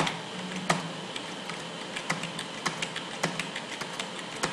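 Computer keyboard keys clicking in an uneven run of keystrokes while lines of code are pasted in, with a sharper key press at the very start and another just under a second in.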